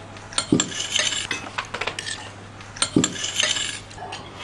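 Cutlery clinking and scraping against plates during a meal, with clusters of sharper knocks about half a second in and again around three seconds in.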